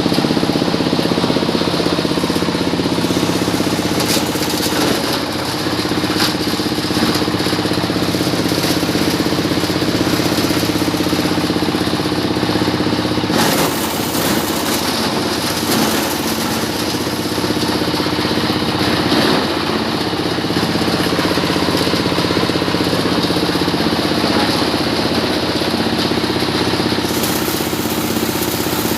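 Engine-driven shredder-grinder running steadily while grinding coconut husk into cocopeat, with a few short knocks as husk passes through the blades.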